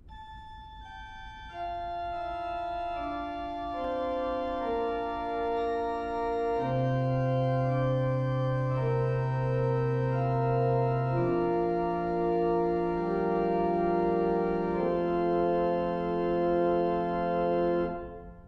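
Organ music playing slow, sustained chords that change every few seconds, with a deep bass note joining partway through; it fades out near the end.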